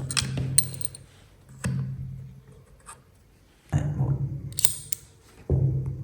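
Small tools clicking and snipping on phone parts, with a low hum that starts abruptly and fades three times.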